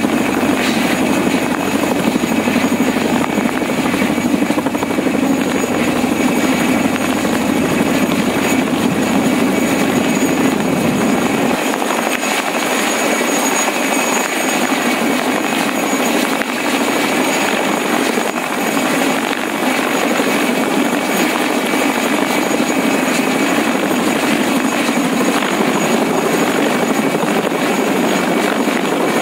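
Mil Mi-2 helicopter hovering low overhead: loud, steady rotor noise with a high whine from its twin turboshaft engines. The deepest rumble cuts out about twelve seconds in.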